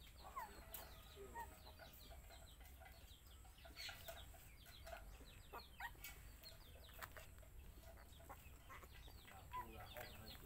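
Faint bird calls: many short, high chirps in quick succession, with a few soft clicks.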